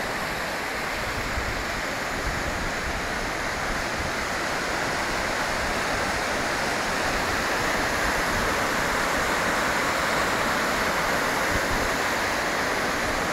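Rushing of a river in spate, swollen by heavy rain: a steady wash of water noise that grows slightly louder toward the end.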